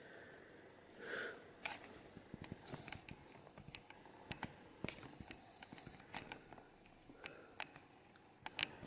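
Faint handling noise: scattered small clicks and taps as a coin and the close-up camera setup are handled and adjusted.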